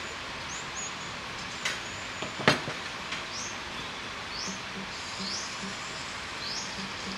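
Bird chirping: short high rising chirps repeated every half second to a second over a steady hiss, with a sharp click about two and a half seconds in.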